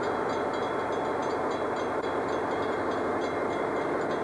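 Diesel locomotive passing close by at speed, a steady rumble and rail noise with no let-up. Over it a high bell rings rapidly, about four strikes a second, typical of a grade-crossing bell.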